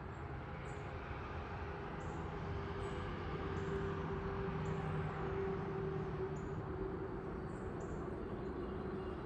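The drone of a distant vehicle, with a steady hum, swelling slowly toward the middle and easing off again. Small birds give brief high chirps about once a second over it.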